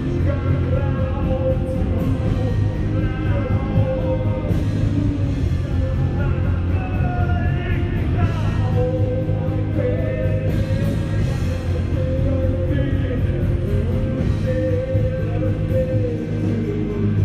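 Live rock band playing, with electric guitars, drums and singing.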